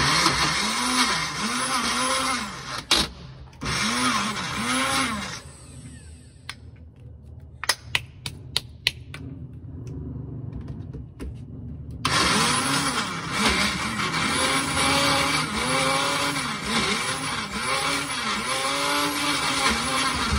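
Small personal bullet-style blender motor grinding chunks of órgano cactus with no water added. Its pitch wavers up and down as the dry chunks bounce and fail to catch, because it is not grinding well. It runs for about five seconds with a short break, stops for several seconds while the jar clicks against the base as it is lifted off and handled, then starts again about twelve seconds in.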